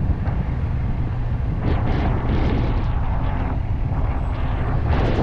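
Vehicle driving, with a steady low road rumble and wind on the microphone; a rushing hiss swells up about two seconds in and again near the end.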